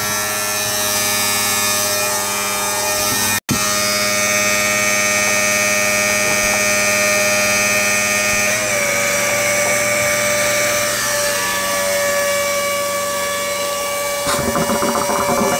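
Electric motor running with a steady whine, briefly cutting out about three and a half seconds in and shifting slightly in tone a little past halfway.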